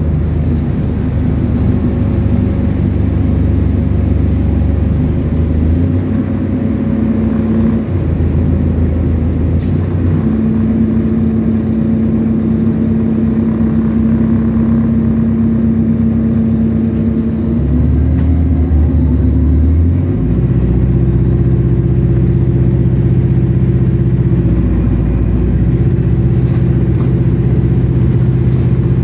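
Bus engine and drivetrain running under way, a steady hum whose pitch shifts in steps every few seconds as the bus goes up and down through its gears.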